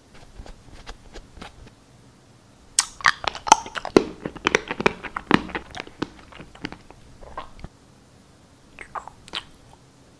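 Plastic toothpaste tube handled and squeezed: a few light clicks, then a dense run of crackling and crinkling for about five seconds as paste is pressed out, and a few more clicks near the end.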